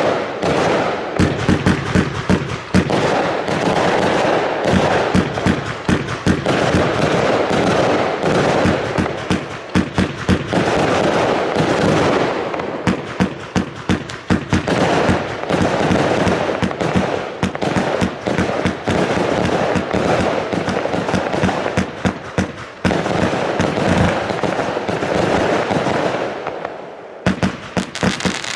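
Argento Pyroshow 2000-A Minerva, a 144-shot 25 mm compound fireworks cake, firing continuously: shots launching and bursting in quick succession, several a second. The firing pauses briefly near the end, then resumes.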